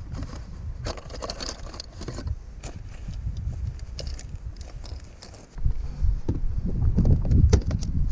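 Shotgun shells clicking and rattling as they are taken from a cardboard box and pushed into a jacket pocket, over a low rumble. About five and a half seconds in this gives way to a louder ride on a Ski-Doo Skandic snowmobile, its engine and wind buffeting the microphone, with rhythmic knocks from the rough trail.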